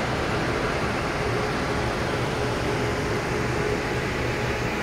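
WAP-7 electric locomotive standing with its cooling blowers running: a steady, even fan-like rush with a low hum underneath.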